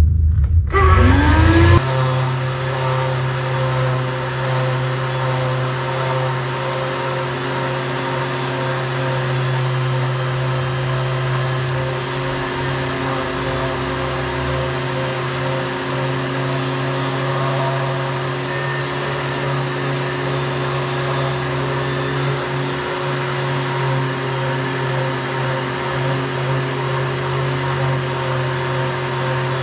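Power sander with a vacuum hose attached, spinning up with a rising whine about a second in, then running steadily as it sands layers of paint off a wooden boat's hull planks.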